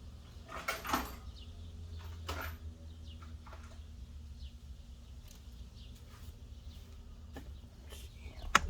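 Tools being handled: two brief rustling clatters, then a couple of sharp clicks near the end, as a socket is tried on a nut. A low steady hum and faint bird chirps run underneath.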